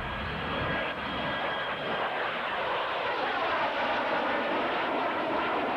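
Airplane engine noise from an aircraft flying past. It swells over the first second and then stays loud and steady, with a slowly sweeping, phasing quality as it passes.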